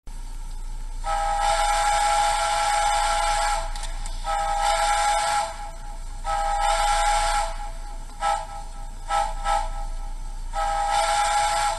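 Soundtraxx Tsunami2 sound decoder playing a deep three-chime steam whistle through a small iPhone 4 speaker, over a steady hiss. It gives one long blast about a second in, two shorter blasts, a quick run of short toots, and another blast near the end.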